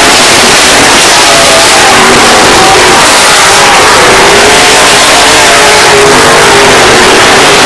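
Dirt-track race car engines running at speed around the oval, loud, with the engine note rising and falling.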